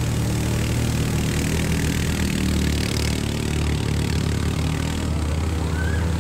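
Four-wheeler ATV engine running steadily as it drives through a shallow creek, with water splashing and spraying from its wheels.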